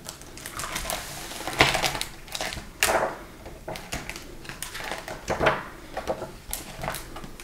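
Hardcover picture book being opened and its pages turned by hand: paper rustling and swishing, with several sharp flaps, the two loudest about a second and a half and about three seconds in.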